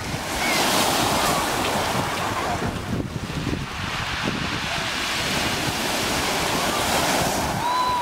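Pacific surf breaking on a pebble beach and washing back over the stones, swelling twice, just after the start and again about five seconds in. Wind buffets the microphone underneath.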